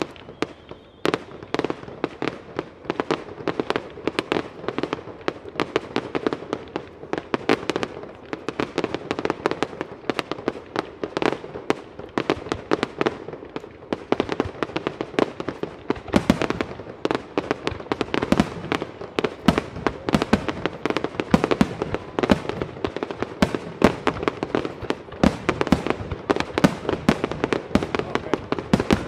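Fireworks display: a rapid, unbroken series of sharp bangs from aerial shells bursting and rack-fired comets, several reports a second, starting about a second in.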